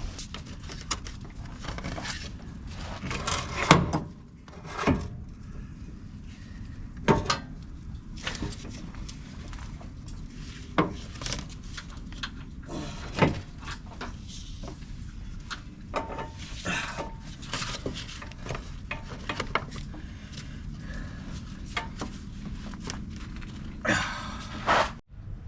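Scattered knocks and clunks of a drive axle being worked and pushed onto the transmission's splined output shaft until its C-clip seats, over a steady low hum.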